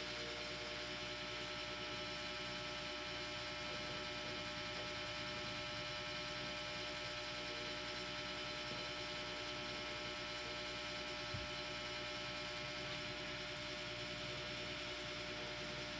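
Steady electrical hum with a faint constant hiss, unchanging throughout; crayon strokes do not stand out above it.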